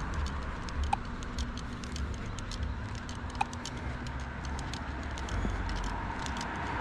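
Quiet street ambience: a low rumble under light, irregular ticking, with two brief high blips about a second in and about three and a half seconds in.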